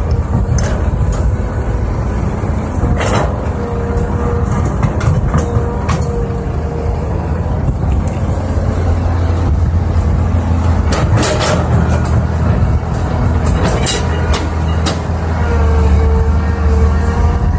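Hydraulic excavator's diesel engine running steadily under load as the machine dumps a bucket of earth into a dump truck, swings and digs again, with a wavering hydraulic whine that comes and goes. Several sharp knocks and clatters of bucket, rock and earth stand out, at about three seconds in and again later.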